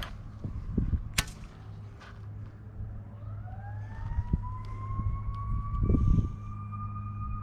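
A siren winding up, rising in pitch from about three seconds in and then holding one steady high tone. Before it come a few sharp clicks, and low thumps sound now and then over a steady low hum.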